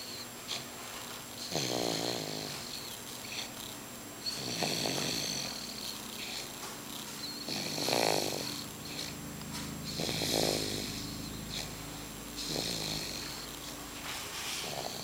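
A sleeping baby snoring: about five snoring breaths, one every two to three seconds, each a low buzzing snore with a breathy hiss.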